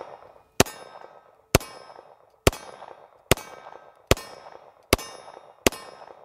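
Beretta M9 9mm pistol fired in a steady string of single shots, seven of them, about one every 0.8 seconds. Each shot is followed by a short metallic ring.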